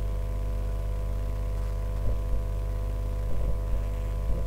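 Steady electrical mains hum with a ladder of overtones, picked up by the recording setup, with a few faint short ticks.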